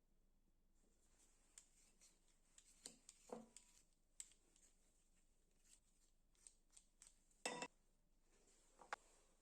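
Faint, scattered small clicks and taps of objects being handled, with a sharper knock about seven and a half seconds in.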